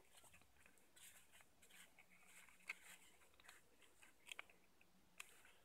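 Near silence, with faint rustles and small crackles of folded paper being handled as glued paper parts are held pressed together.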